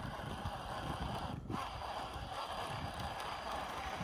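Wind buffeting the microphone: a steady noise with gusty low fluttering, briefly dipping about a second and a half in.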